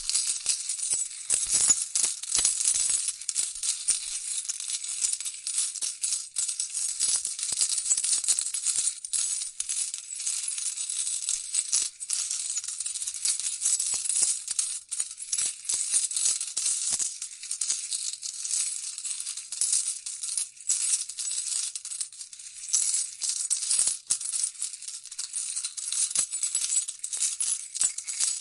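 Coins clinking and jingling in a dense, continuous stream of small bright metallic clicks, like coins dropping and pouring onto one another.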